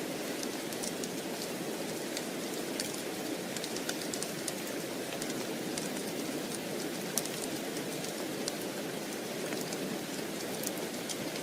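Steady rain, a dense even hiss, with frequent small, sharp, irregular ticks scattered through it.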